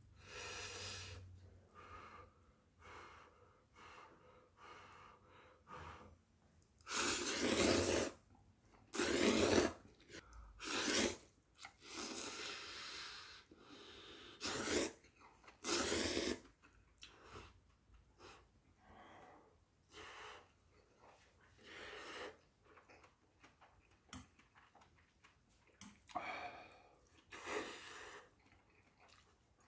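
A person slurping hot instant ramen noodles: a run of loud, noisy slurps one after another, then a couple more near the end, with quieter mouth sounds between.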